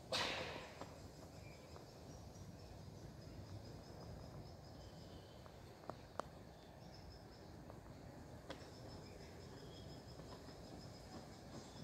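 Outdoor ambience: a faint, steadily pulsing high insect trill over a low background hiss, with a brief rush of noise at the very start and a few small clicks around the middle.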